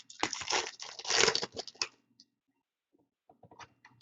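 A hockey card pack's wrapper being torn open and crinkled for about two seconds, followed by a few faint ticks near the end.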